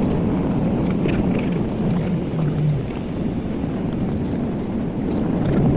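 Steady loud rumble of a Boeing 737-800's CFM56-7B engines and airframe, heard from inside the passenger cabin.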